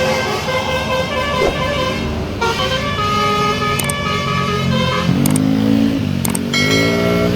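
Indonesian bus 'telolet' Basuri multi-tone horn playing a tune of held notes that change pitch in steps. About five seconds in, lower tones slide up and back down twice.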